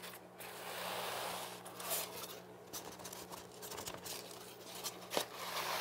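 Flat piece of foam drawn back and forth across seed-starting mix in a plastic seed tray to level it: faint soft scraping swishes, with a single sharp click about five seconds in.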